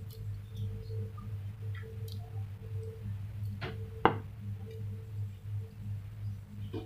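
A steady low electrical hum with a faint higher tone above it, broken by two sharp knocks about three and a half and four seconds in, the second the louder.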